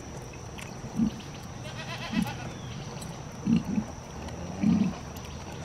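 Kunekune sow giving short, low grunts, about five spaced irregularly, as her piglets suckle.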